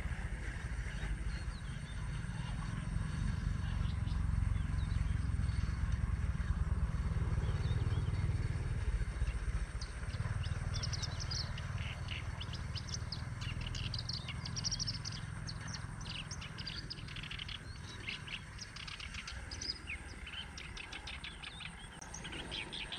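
Wild birds chirping in short, quick calls, thickest from about halfway through, over a steady low rumble.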